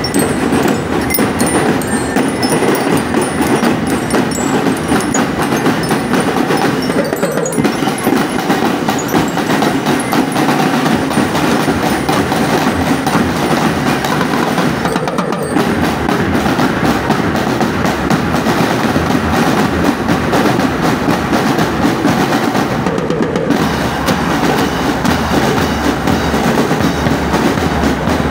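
Marching school drum band playing a steady cadence on snare and bass drums, with a bell-like tune over it, dipping briefly about every eight seconds.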